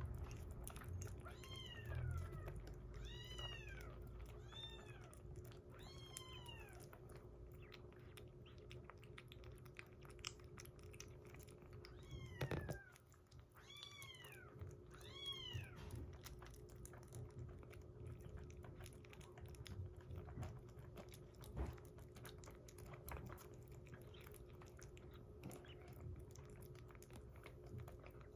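Kitten mewing in short, high, arching calls, about five in the first six seconds and two more about halfway through, over soft wet chewing and lapping clicks as a kitten eats soft weaning food from a glass bowl.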